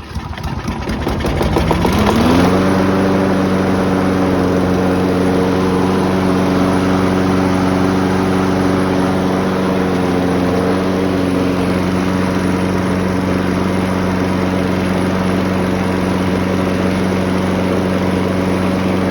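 Craftsman lawnmower's 6.75 engine catching, revving up over about two seconds, then running steadily at speed. It is running on fresh gas after being stored with an empty tank.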